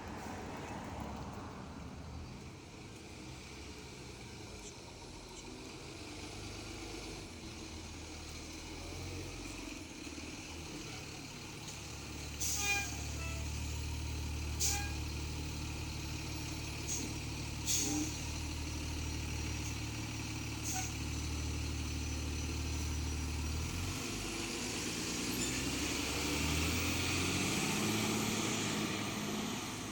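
A fire engine's engine runs steadily, broken by several short, sharp hisses or clicks. Near the end the engine note rises as it speeds up.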